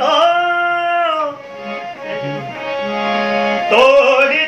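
Harmonium with a male voice singing. The sung note is held and falls away about a second in, leaving the harmonium's sustained reed chords alone until the voice comes back in near the end.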